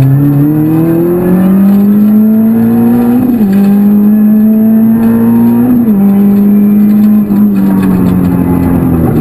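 Renault Clio Ragnotti Group N rally car's 2.0-litre four-cylinder engine heard from inside the cabin, accelerating with the revs climbing, then two upshifts about three and six seconds in, each a quick drop in pitch. After the second shift the engine holds steady, and the revs ease off slightly near the end.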